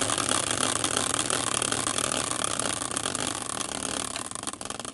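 Prize wheel spinning, its pointer ticking rapidly against the pegs, the ticks slowing and spreading out near the end as the wheel comes to rest.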